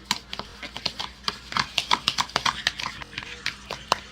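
Rapid, irregular clicking and tapping of hard objects being handled, several knocks a second.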